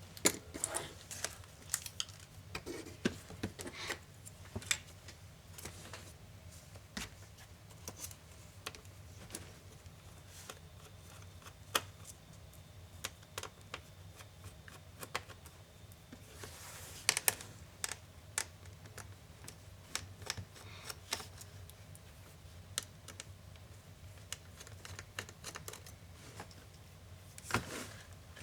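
Irregular small clicks and taps of laptop parts and hand tools being handled during disassembly: plastic and metal pieces knocking and snapping, screws and a screwdriver, over a faint low hum.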